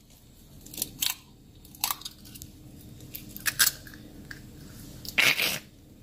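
An egg being cracked open by hand over a frying pan: a few sharp shell cracks and crunches, then a longer noisy burst about five seconds in as it is broken into the pan, over a low steady hum.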